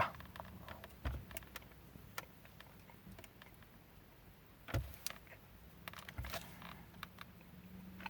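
Quiet handling noises as a small soft-shelled cake is pulled apart: a few soft thumps and scattered small clicks, with a faint low hum coming in near the end.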